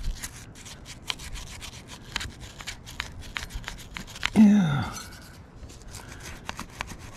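Small brass wire brush scrubbing the steel turret of a Hardinge HC chucker lathe wet with Hoppe's No. 9 solvent, in quick, irregular scratching strokes. About four seconds in, a man's voice makes a short sound that falls in pitch.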